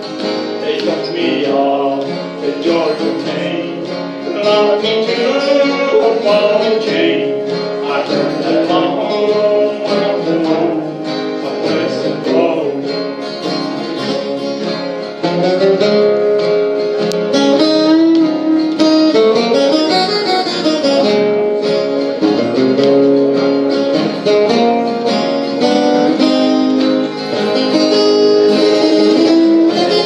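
Acoustic guitars playing an instrumental break in a country song: a strummed rhythm under a picked lead melody whose notes step and bend.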